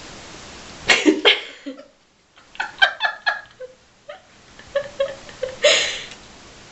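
A person laughing in short bursts of giggles, with breathy outbursts about a second in and again near the end.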